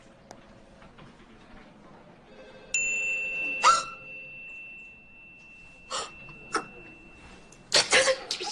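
A woman's sharp, startled gasp, followed by two short breaths. Under them a high steady tone comes in about three seconds in and holds for about five seconds.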